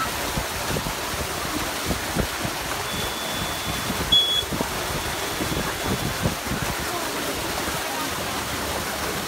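Water gushing steadily through the mouth of an enclosed water-slide tube, a constant rushing hiss. A short, high beep sounds about four seconds in.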